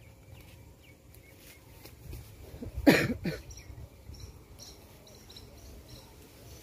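Two short, loud vocal sounds in quick succession about three seconds in, the first much the louder, over faint outdoor background.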